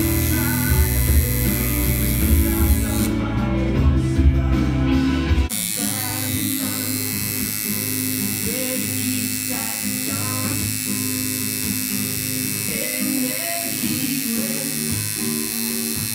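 Music with singing and guitar over the steady electric buzz of a coil tattoo machine. About five seconds in, the deep bass of the music drops out abruptly.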